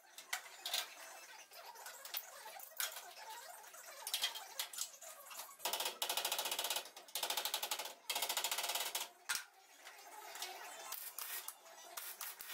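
MIG welder crackling as welds are laid on a car's steel radiator support, in short bursts with two longer runs of steady crackle about six and eight seconds in.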